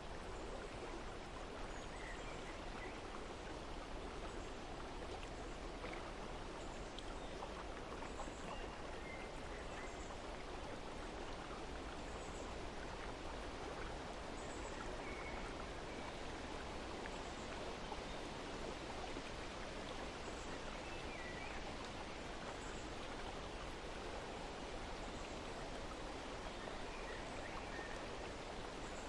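Steady rushing of flowing water, with faint high bird chirps scattered every second or two.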